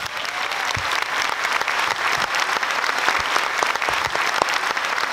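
Audience applauding: a dense, steady clapping of many hands that swells up quickly at the start and then holds even.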